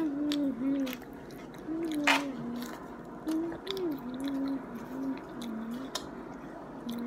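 A person humming low, short rising and falling phrases with the mouth closed, over wet chewing and mouth clicks of a bite of a flour-tortilla burrito. There is a sharp crunchy click about two seconds in.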